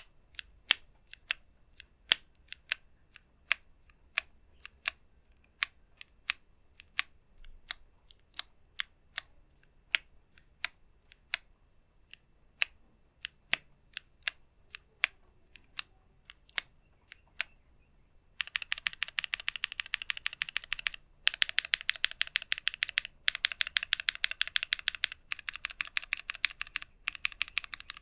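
Mechanical keyboard keystrokes on a stacked-acrylic Drakon60 with an FR4 plate, lubed switches and CRP Tulip keycaps. Single presses come about one and a half per second. About two-thirds of the way through they give way to rapid, continuous typing in runs broken by short pauses.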